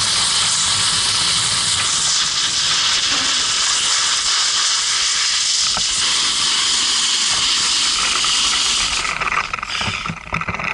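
Snowboard sliding and carving on groomed snow, with air rushing past the action camera's microphone: a steady, loud hiss. About nine seconds in the hiss breaks off as the rider slows and sits down in the snow, giving way to irregular scuffing and knocks.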